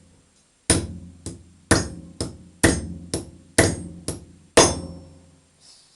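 Hammer blows driving a new silent-block bushing into a VAZ-2110 suspension arm: about nine sharp metallic strikes, roughly two a second, alternating heavier and lighter, each with a short ring.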